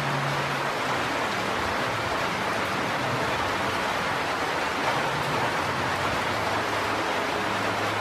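Steady rain falling, an even hiss with no change in level, over a faint low hum.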